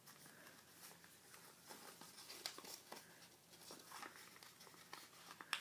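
Faint rustling and crinkling of a sheet of paper being folded and pressed by hand, with scattered small clicks and one sharper click near the end.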